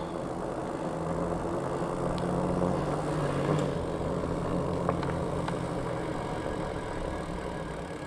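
Knobby fat-bike tires humming steadily on asphalt as the bike rolls along, under wind noise on the microphone, with a few faint ticks.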